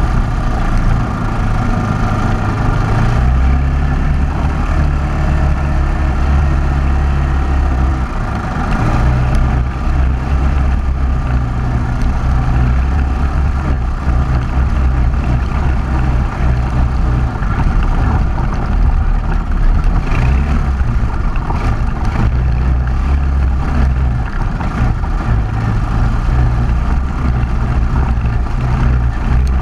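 ATV engine running as the machine drives over dirt and slickrock trail, its note shifting every few seconds with the throttle.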